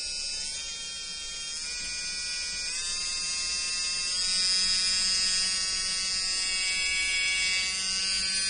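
Electric drill motor running with a steady whine, its pitch stepping up twice in the first few seconds as it speeds up, then holding steady.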